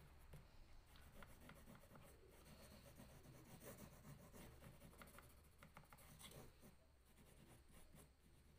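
Faint scratching and rubbing of a green crayon on drawing paper in short, irregular colouring strokes, dying away near the end.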